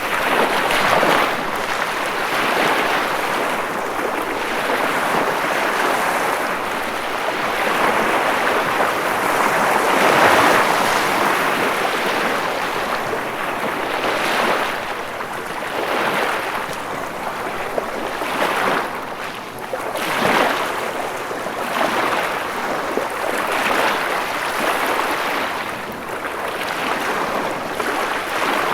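Ocean waves breaking and washing ashore, a steady rush that swells and ebbs every couple of seconds, with the biggest surge about a third of the way in.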